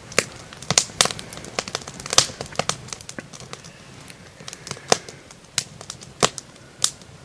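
Fork and knife clinking and tapping on a plate while food is cut up and eaten: a string of sharp, irregular clicks.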